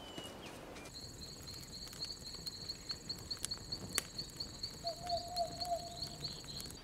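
Crickets chirping in a steady, fast, high trill that starts about a second in, with a few sharp crackles from a small campfire. A second, lower trill joins briefly about five seconds in.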